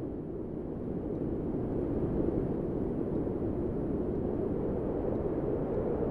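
Steady low rumbling noise with no distinct events, even throughout.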